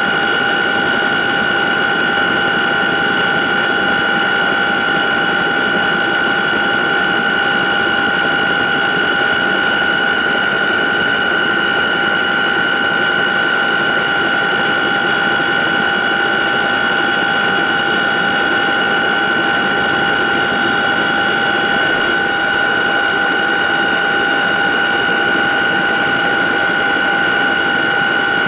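Cabin noise inside a CH-47J Chinook helicopter as it taxis: the steady, loud run of its turbine engines and rotor drive, with a high-pitched whine of several steady tones over a dense rumble.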